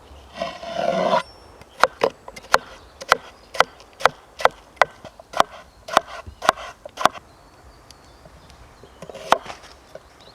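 A knife cutting on a wooden board: about a dozen sharp knocks, roughly two a second, over about five seconds, then one more knock near the end. A short rustle comes just before the cutting starts.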